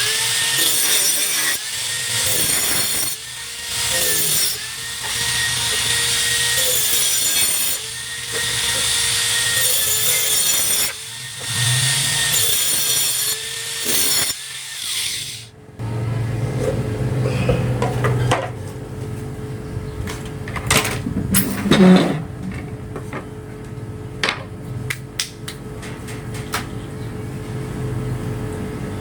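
A hand saw cutting through plywood in bouts of a second or two with short pauses. The sawing stops abruptly about halfway through, leaving a steady low hum with scattered knocks and clicks.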